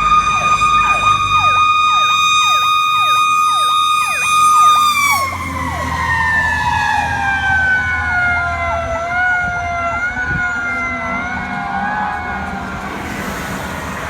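Emergency vehicle sirens: a fast yelp sweeping rapidly up and down under a steady high siren tone. About five seconds in, the steady tone begins sliding slowly down in pitch while the sweeping continues.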